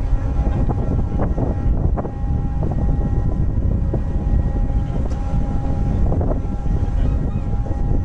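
Car ferry's engines and shipboard machinery running as it manoeuvres into the dock: a steady low rumble with a constant hum, plus low wind buffeting on the microphone.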